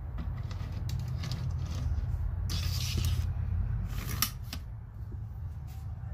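A strip of collated nails is loaded into a pneumatic framing nailer's magazine: metal clicks and a brief sliding scrape as the strip goes in, then a sharp click, the loudest sound, as the spring follower snaps into place a little after four seconds.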